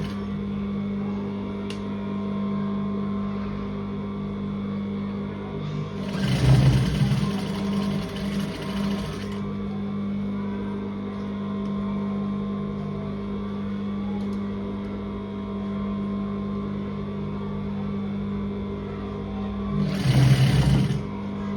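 Electric sewing machine stitching a zipper seam in two runs, a longer one about six seconds in and a short one near the end, over a steady hum.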